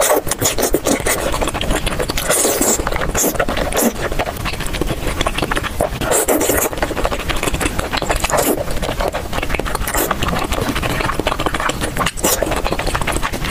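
Close-miked chewing and slurping of sauce-coated tteokbokki rice cakes: continuous wet, sticky mouth sounds, with a few sharper slurps.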